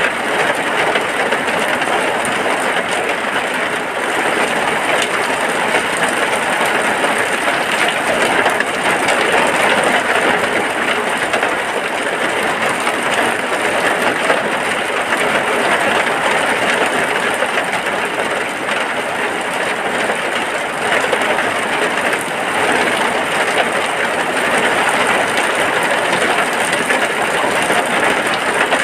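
Steady, dense rainfall on a hut, an even hiss that keeps up without a break.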